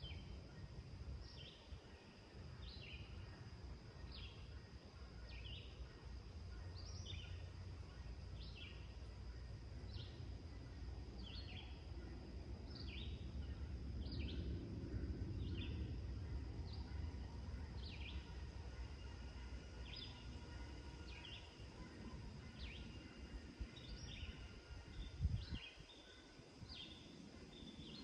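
Rural dawn ambience: a bird calling with short, falling chirps repeated about once a second, over a steady thin high tone and a low rumble. A brief low thump about 25 seconds in.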